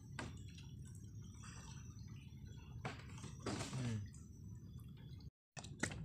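Bamboo poles being dipped into and pulled out of shallow water to push a bamboo raft along: quiet splashing and dripping over a steady low rumble, with a brief break near the end.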